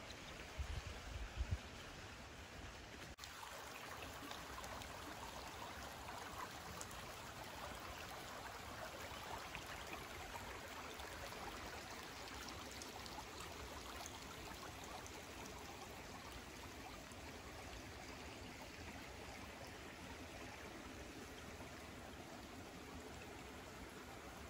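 Small woodland creek running over its bed, a steady trickling rush of water. A few low thumps sound in the first couple of seconds.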